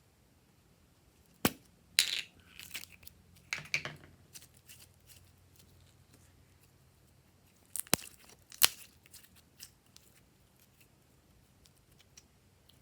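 Glossy slime being pressed and stretched by hand, giving sharp pops and crackles in two short bursts, the second about eight seconds in.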